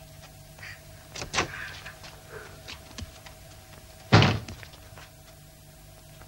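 A few light knocks and bumps, then one loud, heavy slam about four seconds in.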